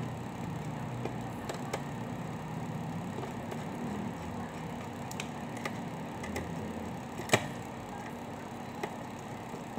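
Small metallic clicks and taps of a screwdriver and fingers working the screws of a laptop CPU heatsink, with one sharper click about seven seconds in, over a steady low hum.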